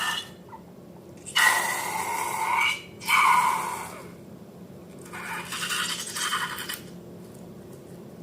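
Scraping and rubbing from slime-making being handled, in three bursts: one about a second and a half in, a shorter one at three seconds, and a longer, softer one from about five seconds.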